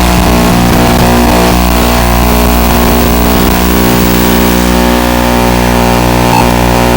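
Steady, loud buzz from an indoor FPV drone's analog DVR recording: a dense stack of unchanging tones over hiss, holding level throughout.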